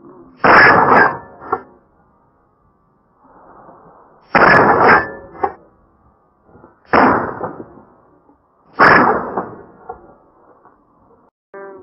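Four shotgun shots a few seconds apart, each a sharp blast with a short echoing tail.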